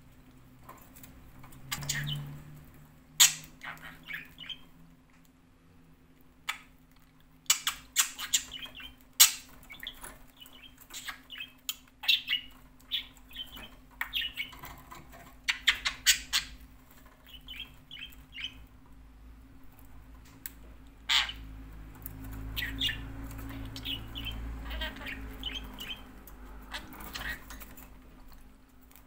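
Pet budgerigar chirping and squawking in many short calls, mixed with sharp clicks.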